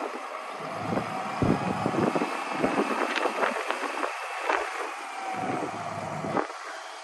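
Altec digger derrick working its boom hydraulics, with the truck's 6.7L Cummins diesel running to drive the pump while the winch line is let down from the boom tip. There is a faint whine in the middle, and wind gusts buffet the microphone.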